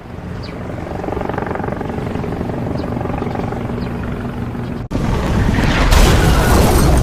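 A steady, low mechanical drone that swells in, then cuts off abruptly about five seconds in and gives way to a louder rushing roar.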